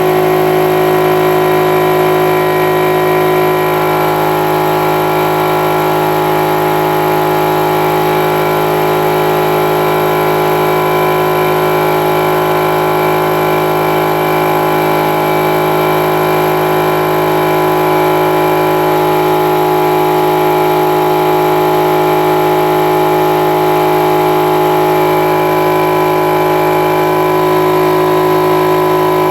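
Central Pneumatic 6-gallon oilless air compressor running loud and steady on its first start-up, its 1.5 horsepower motor and pump filling the tank.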